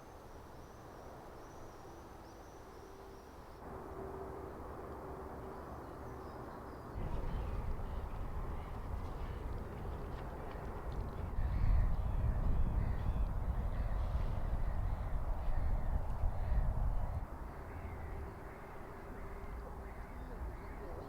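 A bird calling over and over, over a low rumble that swells through the middle stretch and then falls away.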